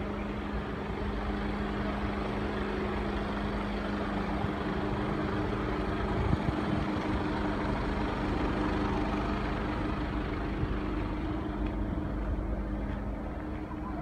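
Heavy truck's diesel engine running steadily, its hum shifting a little higher about four to five seconds in, with a brief knock about six seconds in.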